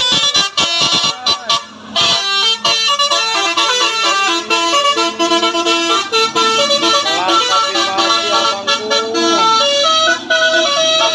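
Hino 500 truck's horns blaring continuously, stuttering in short blasts for about the first two seconds, then sounding a fast run of changing notes like a tune, with a few sliding notes near the end.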